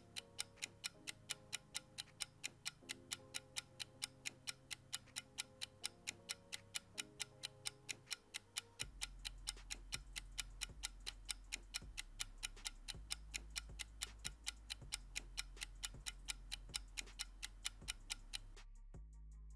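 Clock-like ticking sound effect, about four ticks a second, counting down the answer time, over soft background music. The ticking stops near the end.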